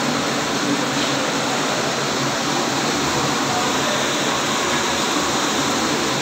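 Hydropower turbine-generator unit running in its powerhouse: a loud, steady, unchanging rush of machine and water noise.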